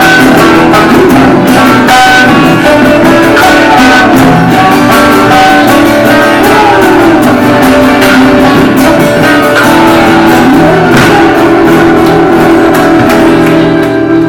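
A live band playing loudly, with guitars, drums and several voices singing together.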